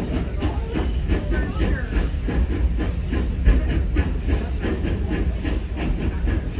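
Railway passenger coach rolling along behind a steam engine, heard from inside the car: a steady low rumble from the wheels on the rails, with frequent clicks and rattles from the coach.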